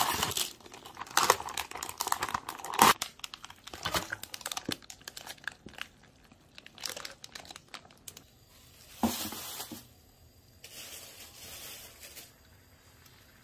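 Plastic cling film crinkling and tearing as it is peeled off a takeout food tray, loudest in the first few seconds, then sparser, softer rustling.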